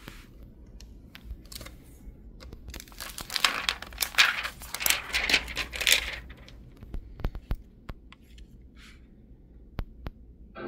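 Plastic sheet crinkling and tearing for about three seconds in the middle, followed by a few light, scattered clicks.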